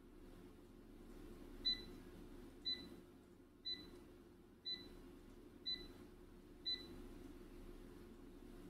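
An electronic beeper sounding six short, high beeps, one a second, over a faint steady low hum.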